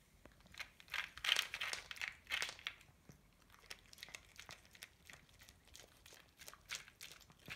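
Sphynx cat eating wet food and dry kibble from a thin plastic plate: irregular crunching and clicking of chewing, with the plate crinkling as it is nudged. Loudest about one to three seconds in and again near the end.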